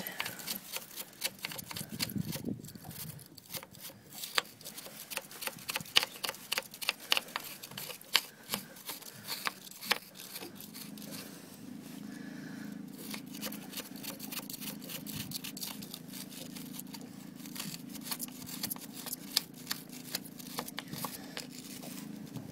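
Scraping and picking at rusty grinding debris in a hole in a boat engine's exhaust manifold with a hand tool: a continuous run of irregular clicks and scrapes. About halfway through, a steady low hum comes in.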